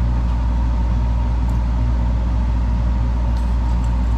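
Steady low mechanical hum, even and unchanging, like a motor or appliance running, with a few faint light ticks.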